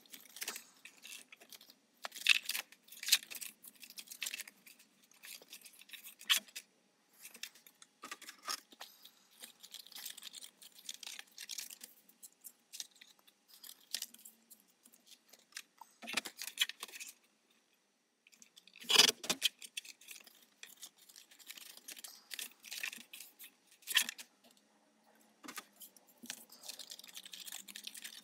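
Stiff cardstock being handled and folded by hand: scattered crisp rustles, creases and light taps, with the loudest bursts a few seconds in and again about two-thirds of the way through.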